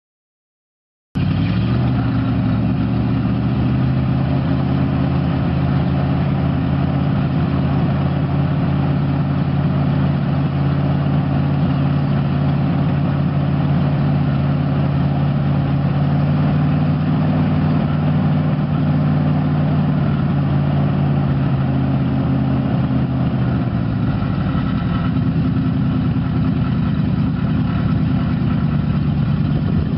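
International 345 V8 gas engine of a 1973 Loadstar 1600 grain truck idling steadily. The sound cuts in suddenly about a second in with the engine already running, and its tone shifts a little, slightly lower, about three-quarters of the way through.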